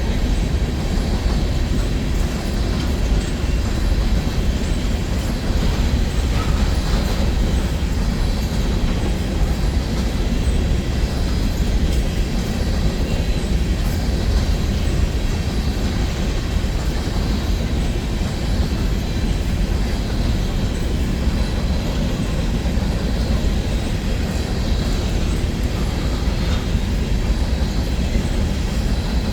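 Empty coal train's hopper cars rolling past, a steady low rumble of steel wheels on the rails.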